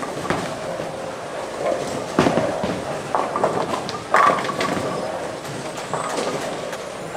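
A bowling ball rolling down a wooden lane after release, then a loud crash into the pins about four seconds in, over the background clatter of a bowling alley with a few other knocks.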